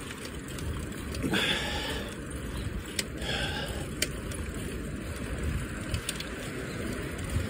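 Bicycle rolling along an asphalt street: a steady low rumble of wind and tyre noise, with a few light clicks and two short hisses, about one and three seconds in.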